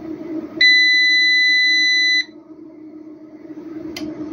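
Ecco HN5500 5.5 kW solar inverter's buzzer giving one steady, high-pitched beep lasting about a second and a half as the repaired unit powers up, over a steady low hum. A sharp click follows about four seconds in, as the inverter's output comes on.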